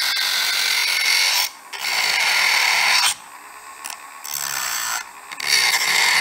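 Dremel rotary tool with a grinding bit grinding the chrome-plated metal of a soap dispenser pump to prepare the surface for soldering: a steady, high-pitched whining rasp that breaks off three times, the longest break about a second.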